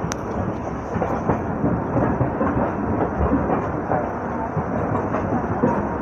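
Rumble and irregular clatter of train wheels on the rails as LHB passenger coaches pass close alongside, heard from the open door of a moving train.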